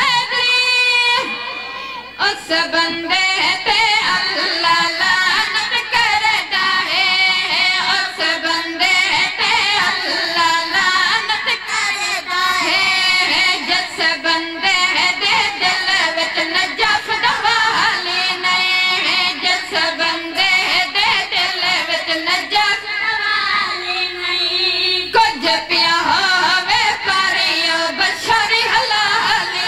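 Boys singing a devotional chant into a microphone: a high melodic line, continuous and wavering with vibrato.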